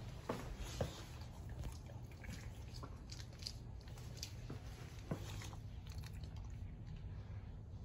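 Dog chewing and gnawing a fabric plush toy: irregular soft chewing and crunching noises, with a few sharper clicks.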